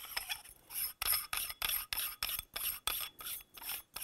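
Leupold Mark 5 HD sunshade being screwed onto the scope's objective bell by hand. Its threads make short, regular rasping strokes, about three a second, as it is turned.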